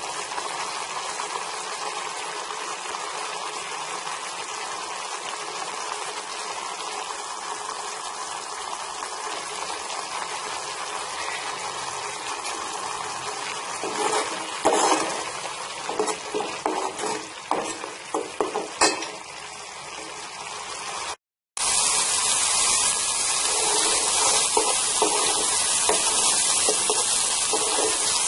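Ground onion, garlic and green chilli paste sizzling in oil in a pan as it fries down to lose its raw smell. From about halfway through, a metal spoon scrapes and knocks against the pan as it is stirred; after a brief cut-out the sizzling comes back louder.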